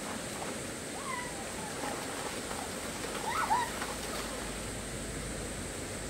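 Steady rush of a shallow rocky mountain stream flowing over stones, with a few short high-pitched cries about a second in and again midway through.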